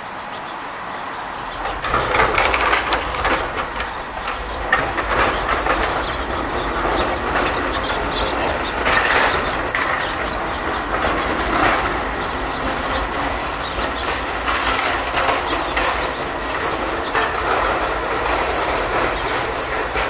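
Steady rumble of a passing vehicle that sets in about a second and a half in, with light clicking over it.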